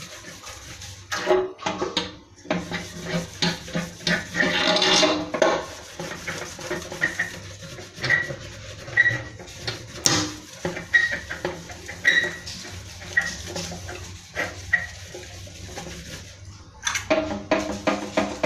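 Metal engine tank being cleaned by hand: irregular rubbing and scraping with light metallic knocks and clatter, and short squeaks about once a second near the middle.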